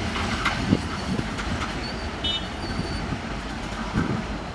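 Passenger train coaches rolling along the track: a steady rumble of wheels with scattered knocks, and a brief high squeal a little past halfway.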